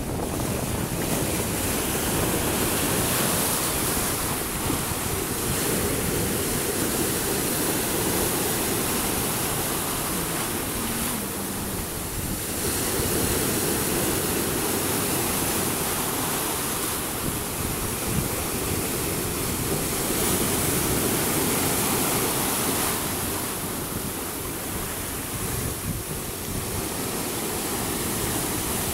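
Sea water rushing and churning white along the side of a moving boat, with wind buffeting the microphone; a steady wash that swells and eases slightly every few seconds.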